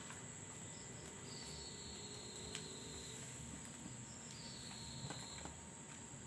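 Faint, steady, high-pitched insect chirring in the background, with a few soft taps.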